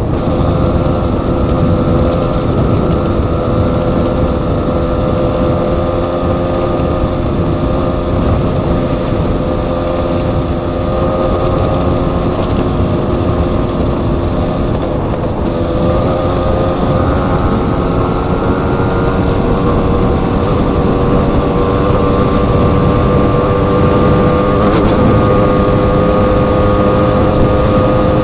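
Dual-sport motorcycle engine running at a steady cruising speed over a dense low rumble, its pitch rising a little past the midpoint.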